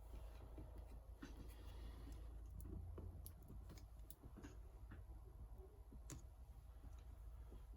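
Faint, irregular clicks and light scraping of small repair tools working on a badly smashed iPad digitizer glass, over a low steady rumble.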